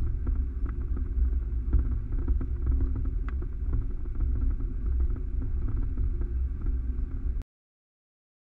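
A vehicle driving along a gravel track: a steady low rumble of engine and tyres with a few faint ticks. It cuts off suddenly about seven seconds in.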